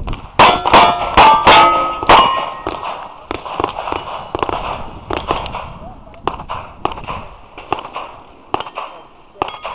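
Five rapid pistol shots in about two seconds, each with the ringing clang of a hit steel plate, from a stage run in a steel shooting match. Fainter scattered pops and clanks follow.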